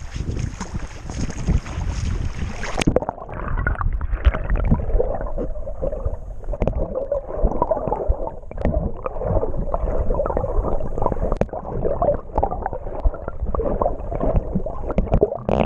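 Wind and water rushing on the microphone, then about three seconds in the sound abruptly turns dull and muffled as the microphone goes under water: an underwater rush full of small knocks and gurgles.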